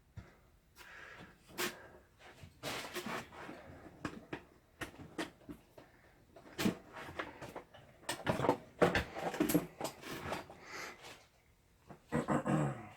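Tools and parts being moved around and set down on a workbench: irregular clicks, knocks and clatter with handling noise between them.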